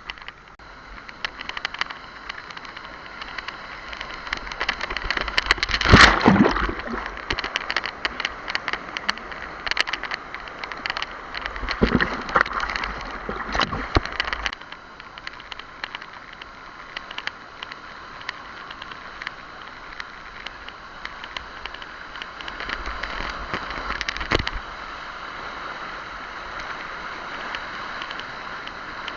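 Rushing river water with crackling splashes on a whitewater slalom course. It swells loudest about six seconds in and again around twelve to fourteen seconds, then settles into a steadier rush.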